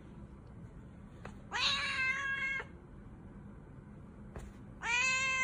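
A cat letting out two long, even-pitched meows about three seconds apart, each just after a faint tap.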